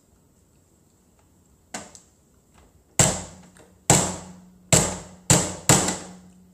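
Small wooden mallet knocking six times on a hard chocolate-coated dessert on a plate. One lighter tap comes first, then five hard blows that come quicker toward the end.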